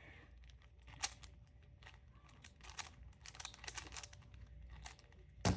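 Plastic speed cube being turned by hand to scramble it: scattered quick plastic clicks of the layers turning, with a louder knock near the end.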